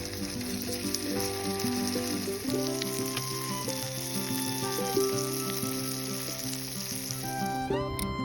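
Background music of held notes, with a steady sizzling hiss and small crackles over it that stops suddenly near the end.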